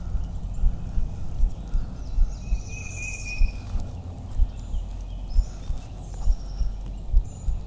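Dull low thumps recurring about once or twice a second, with small birds chirping and singing faintly over them.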